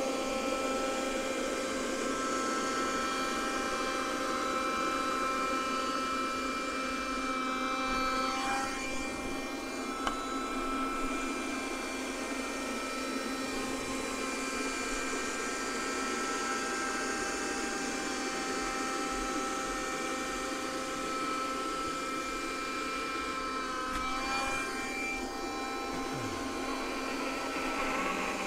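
Kärcher WV6 Plus battery window vacuum running, its suction motor giving a steady whine as the squeegee head is drawn over a glass pane, sucking up the cleaning water. The motor note dips briefly twice, about eight and twenty-four seconds in.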